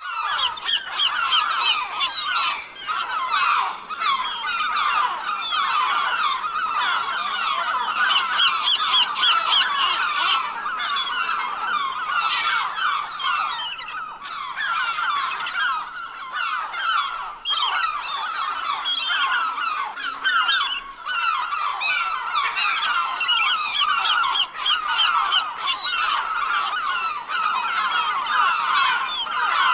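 A flock of seagulls calling, with many short calls overlapping in a continuous din.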